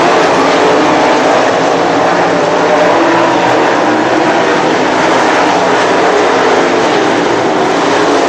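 Several 360 winged sprint cars racing, their V8 engines at high revs blending into one loud, steady engine noise whose pitch wavers up and down as the cars go through the turns.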